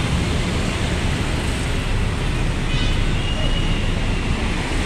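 Diesel coach engine idling, a steady low rumble mixed with roadside traffic noise, with a faint high whine briefly about three seconds in.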